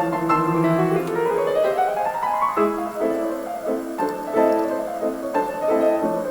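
Background music: piano playing quick runs of notes, with one rising run a couple of seconds in.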